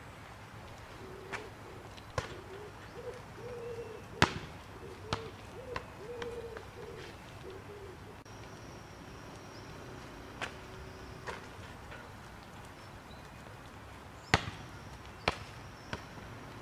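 Basketball shot: the ball knocks against the hoop and bounces on the stone paving, a series of sharp single knocks with the loudest about four seconds in and a few more bounces near the end.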